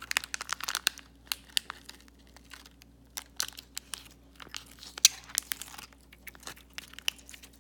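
Hands handling a putty toy and its plastic packet: irregular crinkling and clicking, densest in the first second, with one sharp click about five seconds in.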